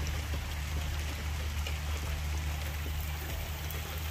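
Steady rain falling on a wet paved driveway and yard, an even hiss, with a steady low rumble underneath.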